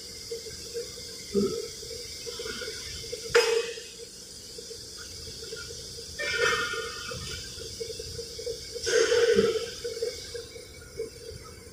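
Metal-working machinery running with a steady hum. A sharp metallic knock comes about three and a half seconds in, and two longer hissing, scraping bursts come around six and nine seconds in, as steel plates are handled at the machine.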